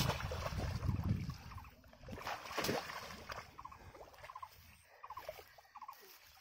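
Shallow muddy water splashing and sloshing as a bamboo polo fish trap is plunged into it and a person wades through it. The heaviest splashing comes in the first second or so, with another sharp splash a little before three seconds in, then quieter sloshing.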